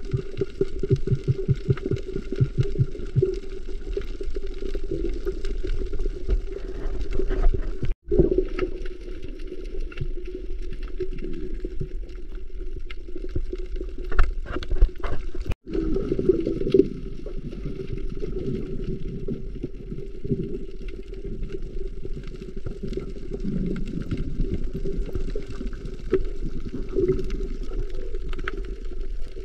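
Muffled underwater sound picked up by a camera in a waterproof housing: a steady low hum of water with constant fine crackling, and a few sharper clicks a little past the middle. It cuts out briefly twice.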